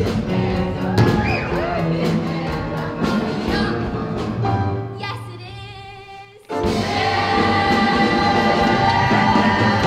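A young stage cast singing a musical-theatre ensemble number with a live band. About five seconds in the band drops out, leaving one wavering held note that fades; then the full cast and band crash back in loudly.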